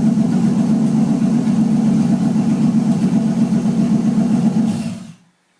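Car engine, newly fitted, running steadily at idle, then dying away about five seconds in.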